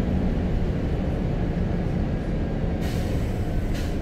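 Scania L94UB bus's 9-litre five-cylinder diesel engine running with a steady low drone, heard from inside the saloon. Two short hisses come about a second apart near the end.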